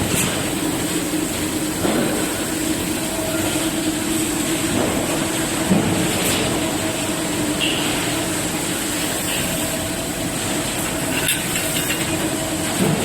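Arc-welding robot cell running: steady machine hum and hiss with a few faint clicks, loudest briefly a little before the middle.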